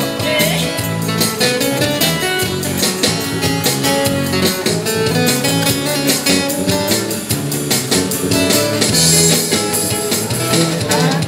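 Live street band playing an instrumental passage: guitar carrying the melody over bass with a steady beat.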